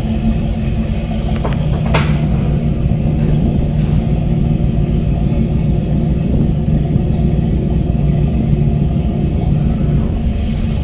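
A motor yacht's engines running at low speed while it manoeuvres into its slip: a steady low rumble with an even hum. There is a brief click about two seconds in.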